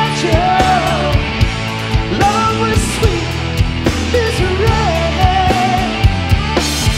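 Rock band playing a hard-rock song: a lead singer's melody over regular drum hits and guitars.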